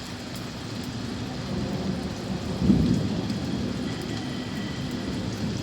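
Steady rain falling, an even hiss, with a louder low rumble swelling and fading about two and a half seconds in.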